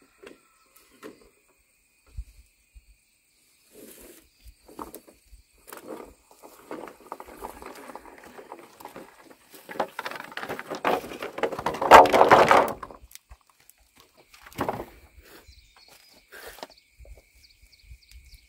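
Bamboo poles being handled and carried: scattered knocks and clacks, then a stretch of close rustling and scraping that is loudest a little past the middle, followed by a single hollow knock. Footsteps on dirt are mixed in.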